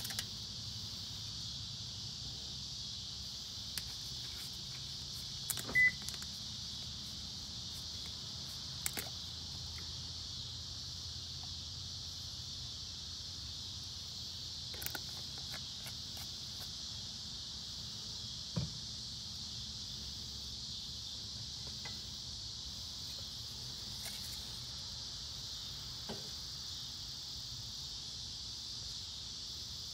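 Steady high chirring of crickets, with a handful of short clicks and knocks from handling the oil bottle and funnel over the engine bay, the loudest about six seconds in.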